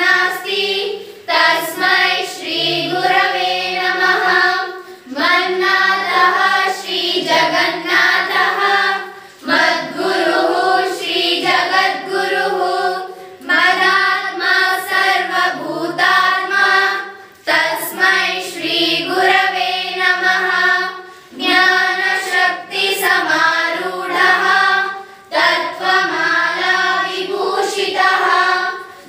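A group of schoolchildren singing a guru vandana, a hymn in praise of teachers, together in unison, in phrases of about four seconds with short breaks for breath between them.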